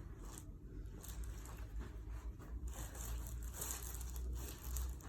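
Irregular soft rustling and crinkling, like fabric or paper being handled and shifted, over a steady low rumble.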